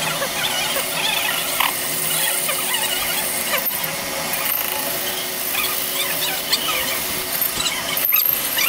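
Metal lathe boring out an atta chakki bearing cup: the cutting tool scrapes against the spinning metal with many short, repeated squeals over the steady hum of the running lathe.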